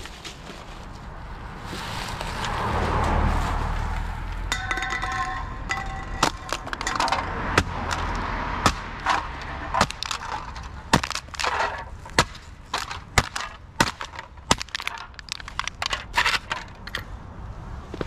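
Empty aluminium drink cans clinking on asphalt, then being crushed flat underfoot: a rapid run of sharp metallic cracks and crunches.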